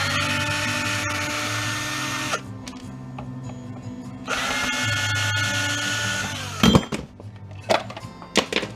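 Power drill running in two steady whining bursts of about two seconds each, separated by a pause, followed by a sharp knock and a few clicks near the end.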